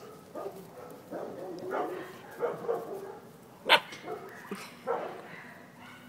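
Puppies barking and yipping in play: a string of short barks, with one sharper, louder bark a little past the middle.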